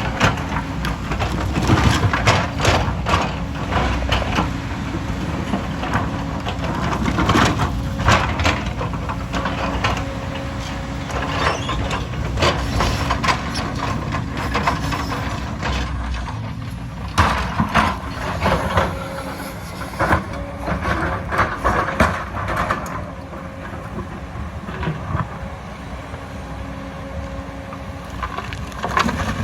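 Diesel engine of heavy earthmoving equipment running steadily under load, with repeated clanks, knocks and scraping from the machine's steel parts working against earth and stone.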